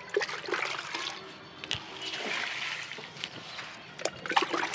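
Diluted liquid manure being poured by the mugful onto potted plants, splashing and trickling into the soil. A few sharp knocks come through, one at the start, one under two seconds in and a cluster near the end.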